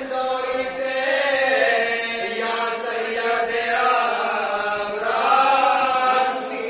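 Group of men chanting a marsiya, an Urdu elegy for Hazrat Abbas, together in unison with no instruments, in long held lines that glide up and down in pitch; it swells loudest a little past the middle.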